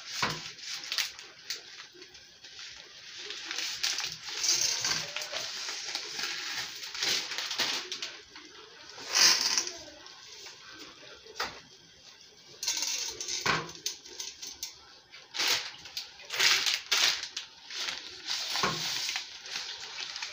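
Dry spaghetti being handled and fed into a stainless steel pot of boiling water: an uneven rustling hiss with a few sharp clicks and knocks, the loudest about nine seconds in.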